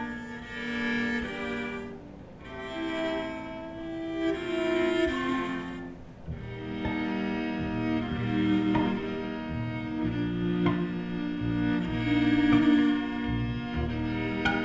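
Amplified string quintet of violins, viola and two cellos playing a bowed passage of sustained notes. About six seconds in, a pulsing low cello line comes in under the upper strings.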